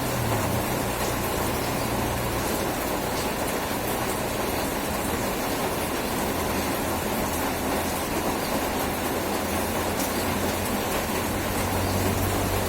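Steady heavy rain, an even dense hiss, with a low hum at the start and again near the end.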